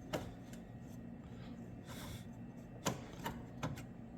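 A few sharp metallic clicks and taps from hand work on the engine mount while it is lined up, the strongest near the start and three close together near the end, over a steady low hum.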